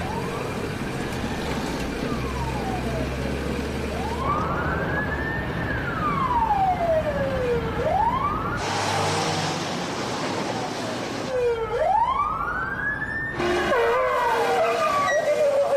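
GAZ-21 Volga militia car's siren wailing in slow sweeps, rising and falling about once every four seconds, over the car's engine running. Near the end the wail turns more layered.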